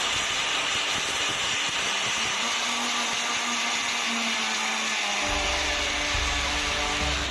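Electric kitchen mixer grinder running at full speed, grinding a dry mix of dried coconut, poppy seeds, rock sugar and dates in its small steel jar. It stops abruptly at the end.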